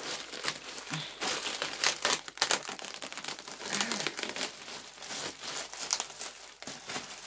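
Packaging crinkling and rustling as it is handled and pulled open by hand, with a few louder crackles about two seconds in.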